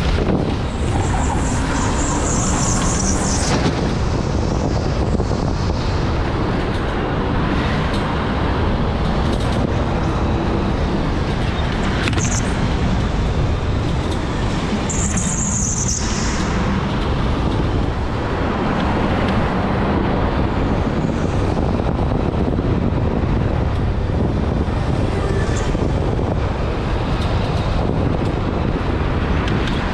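Electric go-kart running at speed: a steady rumble of motor and tyres on the track, with brief high squeals about two seconds in and again about halfway through.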